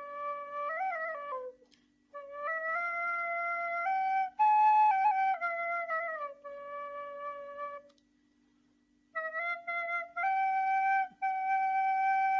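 Nay, an end-blown reed flute, playing a slow melody of held notes that step up and down, with one falling glide. The melody is played in phrases with short breaks about two seconds in and about eight seconds in. A faint steady low hum runs underneath.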